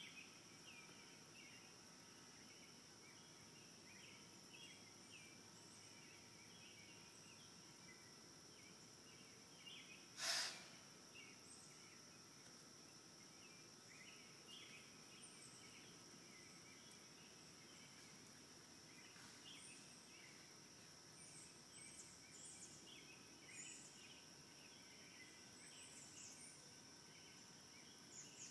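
Quiet outdoor ambience: a steady high-pitched insect drone with scattered short chirps, and one short sharp crack about ten seconds in.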